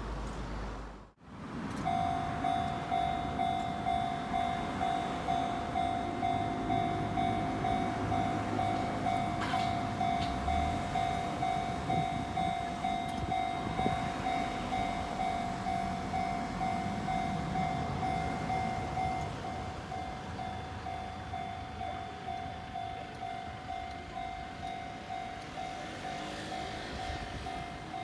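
Japanese level crossing's electronic warning bell ringing in a steady rhythm of about one and a half dings a second, with a Kintetsu Minami Osaka Line electric train rumbling through the crossing. A brief silence about a second in breaks the sound before the bell starts.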